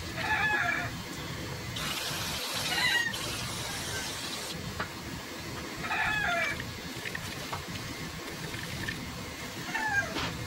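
Chickens calling: four short calls spaced a few seconds apart. A steady hiss starts about two seconds in and cuts off sharply near the middle.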